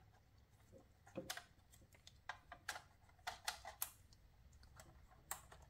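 Faint, scattered light clicks and taps from handling the plastic instrument cluster and its newly fitted LCD with gloved fingers.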